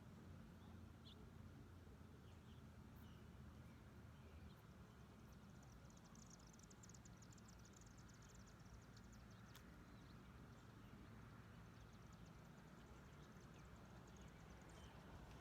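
Near silence with a faint low hum, broken twice by patches of faint, rapid, high-pitched ticking: once for a few seconds in the middle and again near the end.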